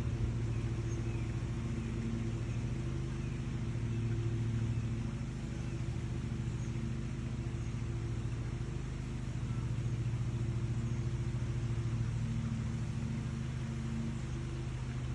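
A steady low mechanical hum that holds one pitch throughout, with a few faint, short bird chirps above it.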